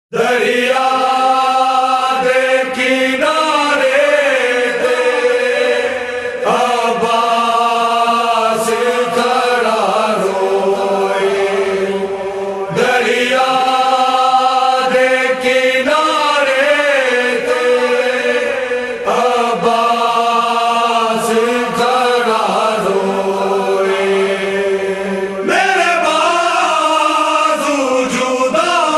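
A voice chanting in long, held, wavering phrases that repeat every few seconds, with a steady low tone underneath.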